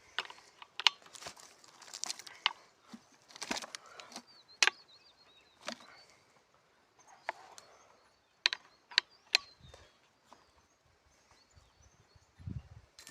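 Irregular sharp knocks and clicks, about a dozen spread unevenly, with faint high chirps among them; no engine is running.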